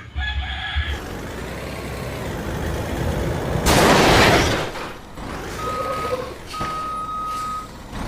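Truck sound effects: a noisy engine-like hiss, a loud burst of hissing about four seconds in like an air-brake release, then two steady electronic beeps near the end, the second longer.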